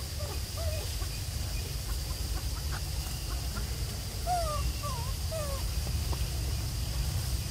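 A few short animal calls, each a quick sweep up or down in pitch: one about half a second in and a cluster of four or five a little past the middle. A steady high hum and a low rumble run underneath.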